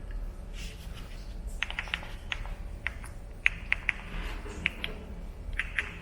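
Footsteps on gritty ground: irregular sharp clicks, often in quick pairs, over a low steady hum.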